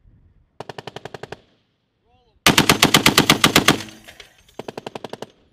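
Browning M2 .50-calibre heavy machine gun firing three bursts of about ten shots a second. The middle burst is the loudest and longest, over a second; the first and last are shorter and quieter.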